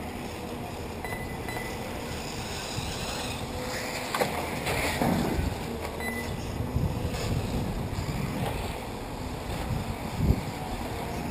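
Wind buffeting the microphone over the faint, wavering whine of electric 1/8-scale RC buggies racing on the dirt track. Two sharp knocks stand out, one about four seconds in and one near the end.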